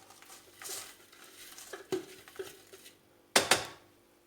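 Buttered biscuit crumbs being scraped and tipped out of a food-processor bowl into a cake mold, with soft scraping and a knock just before two seconds in. A short, louder knock about three and a half seconds in is the loudest sound.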